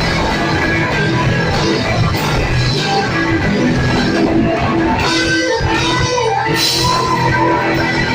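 Live blues-rock band playing an instrumental passage, with electric guitar over bass and drums.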